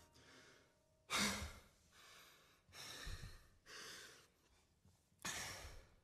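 A person breathing close to the microphone: a series of short, quiet breaths, the loudest about a second in.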